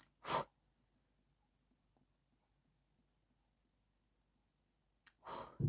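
Faint scratching of a Faber-Castell Polychromos coloured pencil on hot-press watercolour paper as small strokes are laid in, with two short louder rasps, one just after the start and one near the end.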